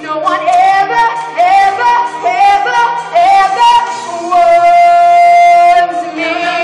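A girl singing over backing music: short, bending vocal runs, then a long held high note from about four and a half to six seconds.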